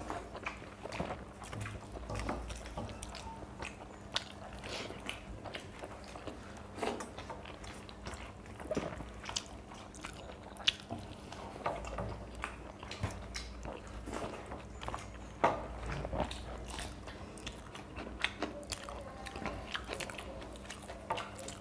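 Two people eating watery panta bhat by hand: irregular chewing and mouth smacking with wet rice being squished between fingers, over a faint steady low hum.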